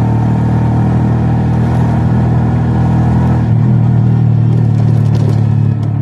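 Vehicle engine running at a steady cruise, with a small shift in the engine note about halfway through.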